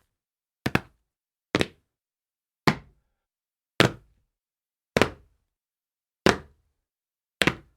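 Shoes landing on a tile floor from repeated jumps: seven sharp landings about a second apart, several with a quick double hit as one foot lands just before the other.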